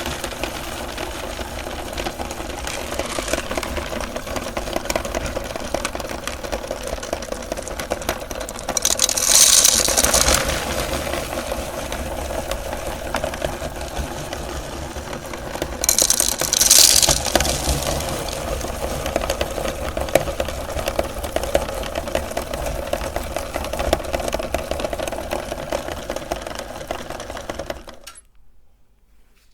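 Electric meat grinder running steadily while grinding M&M candies, with a dense crackle of candy being crushed. The crunching surges louder twice, and the motor cuts off suddenly near the end.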